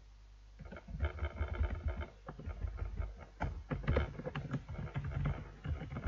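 Computer keyboard typing: a run of irregular clicks, with perhaps a mouse click or two, starting about half a second in.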